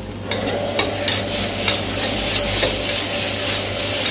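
Chopped aromatics and chili paste sizzling in hot oil in a wok, swelling about a third of a second in as a metal ladle starts stirring. The ladle scrapes and taps against the wok with irregular clicks.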